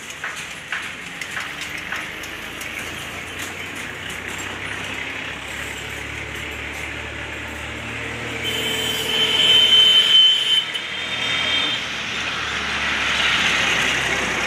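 A motor vehicle passing, its engine hum building and loudest about nine to eleven seconds in, with a high steady tone over it at that point.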